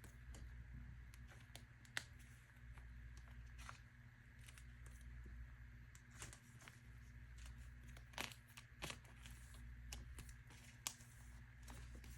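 Faint rustling and a few scattered small clicks of photocards and plastic binder pocket pages being handled, over a low steady hum.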